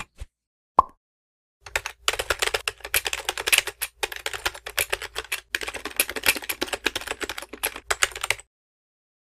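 Rapid, dense run of light clicks and taps, with a couple of single clicks first, then a few seconds of quick clicking with brief breaks, cutting off abruptly near the end.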